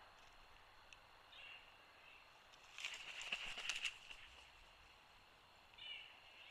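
Bald eagle chattering: a rapid run of high, piping notes about three seconds in, lasting about a second, with a single short call before it and another near the end.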